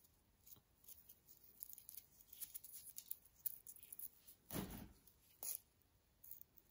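Faint, quiet crackling of flaky yeast-dough cheese sticks being broken and handled in gloved fingers, with a louder short rustle about two-thirds of the way through.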